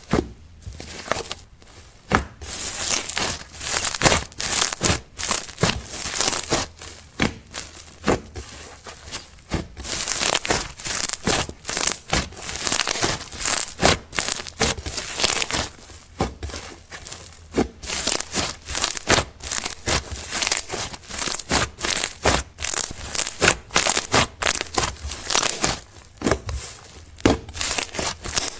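Slime being kneaded and stretched, giving dense crackling clicks and pops in irregular bursts with brief pauses.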